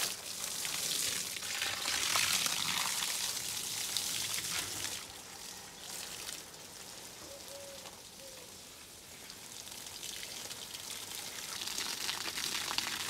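Water spraying from a garden hose, a steady hiss as it splashes onto the soil of a wooden raised bed. About five seconds in it grows fainter as the spray is aimed away over the fence, then it rises again near the end.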